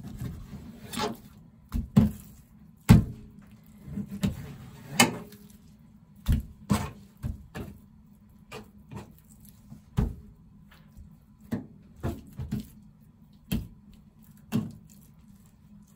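Kitchen knife cutting raw chicken breast on a plastic cutting board, the blade knocking on the board in irregular sharp taps, closer together in the first half and sparser toward the end.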